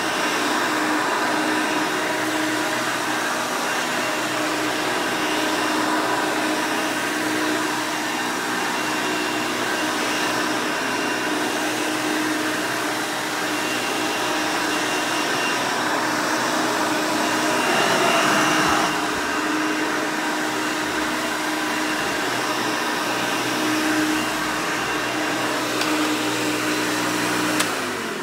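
Hoover Elite 200 U4467 upright vacuum with its 5-amp motor running steadily, a hum with a few fixed tones, which the owner calls flawless. Near the end it is switched off and winds down.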